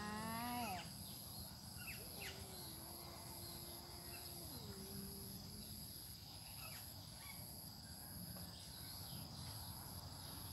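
A domestic cat's territorial yowl at another cat: a rising wail at the start, then a drawn-out low moan from about two to five seconds in that drops in pitch near its end. Crickets chirp steadily in a regular pulse throughout.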